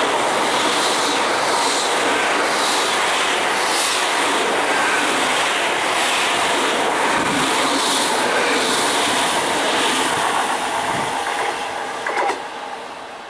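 Great Western Railway Intercity Express Train passing close by at speed: its engines and wheels make a steady loud noise, with the wheels clicking over the rail joints about once a second. The sound fades toward the end, with a brief knock near the end.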